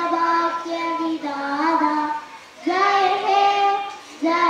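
A schoolgirl singing alone into a microphone, without accompaniment. She holds long sustained notes in phrases, with short pauses for breath about halfway through and near the end.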